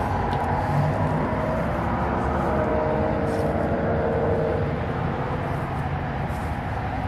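A steady mechanical hum with faint held tones, running without a break.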